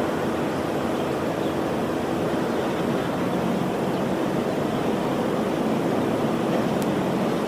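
Steady rushing of fire-hose and water-cannon streams spraying onto a burning car-carrier ship, even throughout with no separate events, and cut off abruptly at the end.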